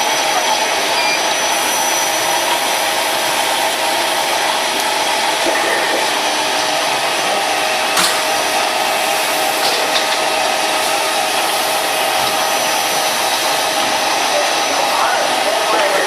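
SL 2011A binding-tape strip cutting machine running, a steady motor whir and hum. A single sharp click about eight seconds in.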